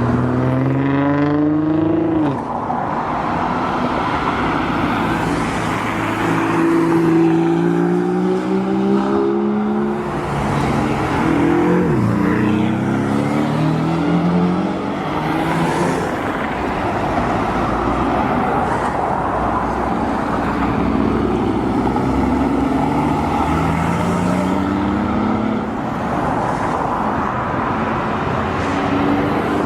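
Supercar engines accelerating hard, their pitch climbing in several long rising sweeps, over the steady rumble of other engines idling and running.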